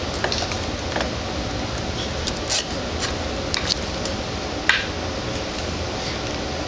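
A baby's short mouth noises, her version of blowing raspberries: four brief sharp smacks spaced about a second apart, over steady room noise.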